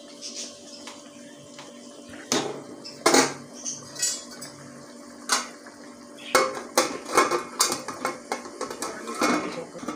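Steel ladle knocking against a metal cooking pot of simmering curry, a few separate knocks, then a quick run of metallic clinks and clatters as a metal lid is set on the pot with tongs.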